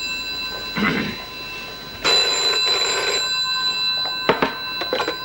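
Telephone bell ringing: one ring of about a second, about two seconds in, with the tail of the previous ring at the very start. A few sharp clicks near the end as the handset is picked up.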